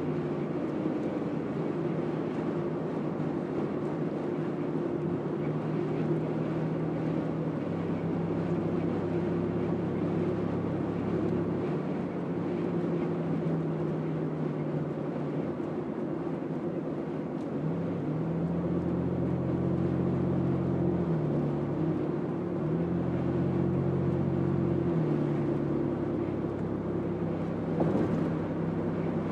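Car driving along a road, heard from inside the moving car: a steady drone of engine and tyre noise. Its low hum shifts in pitch a few times, and there is a brief knock near the end.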